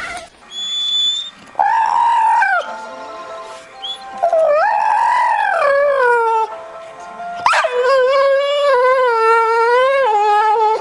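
A dog howling in three long cries. The second slides down in pitch at the end, and the last is long and wavering.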